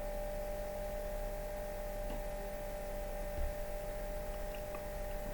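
Room tone: a steady low electrical hum with a few faint held tones over light hiss, and one soft low bump about three and a half seconds in.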